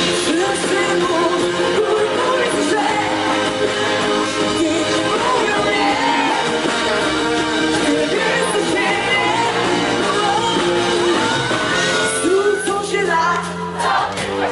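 Live pop-rock band music: a woman singing into a microphone over electric guitar and drums, played loud through a PA and picked up from among the audience.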